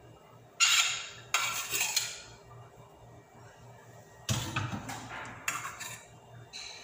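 A cooking utensil scraping and clinking against a stainless steel skillet while cooked ground beef is scooped out, in several separate clatters, with a heavier knock about four seconds in.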